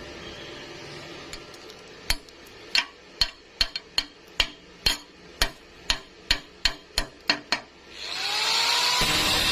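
A hammer striking metal about fifteen times in quick, uneven blows. Near the end a power tool starts up, its whine rising and then holding steady.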